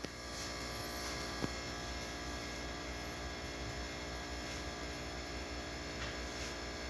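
A steady electrical hum, with one small knock about one and a half seconds in.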